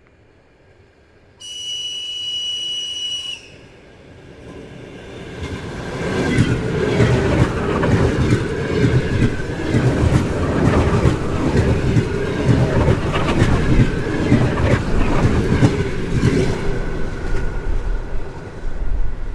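Train whistle sounding one high, steady blast for about two seconds, then a train coming along the platform and running close by. Its wheels clatter and click densely over the rail joints, it is loudest for about ten seconds, then it fades near the end.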